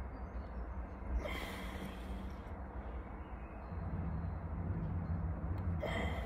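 A man breathing heavily, out of breath from exertion: two loud, hissing breaths, about a second in and near the end, over a low rumble.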